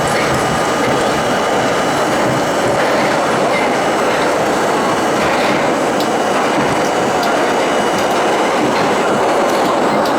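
Budd-built R32 subway train running at speed through a tunnel: a steady, loud rumble of wheels on the rails with some clickety-clack and a few faint, steady high tones over it.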